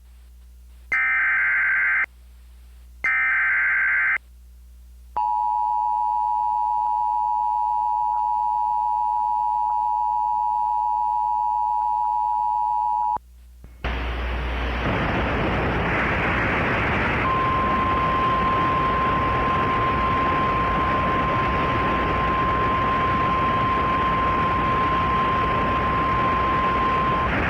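Emergency Alert System tones: two short SAME header data bursts, then the two-tone EAS attention signal held for about eight seconds. A second after it stops, a steady hiss of radio static comes in, and a few seconds later a single steady weather-radio warning alarm tone plays over the static until near the end.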